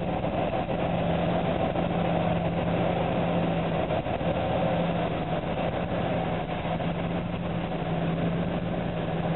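ST44 (Soviet M62) diesel locomotive's two-stroke V12 engine running with a steady low drone as it slowly hauls a train of cement hopper wagons.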